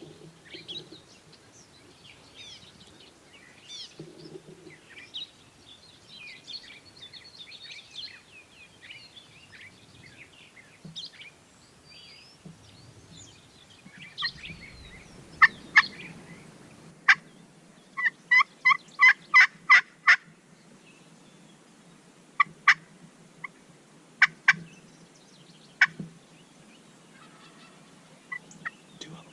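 Turkey yelps and clucks: a few sharp single notes, then a quick run of about seven yelps, then a few more single notes. Small songbirds chirp faintly through the first half.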